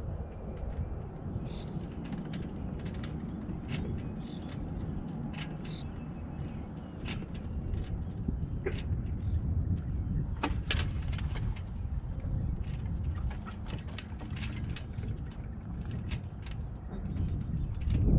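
Wind rumbling on the microphone and water washing along a small sailboat's hull as it sails, with scattered light clicks and knocks throughout.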